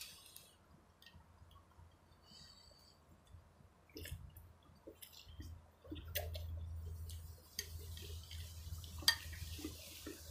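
Someone eating noodle soup: quiet slurping and chewing, with a few sharp clicks of chopsticks and a spoon against the ceramic bowl.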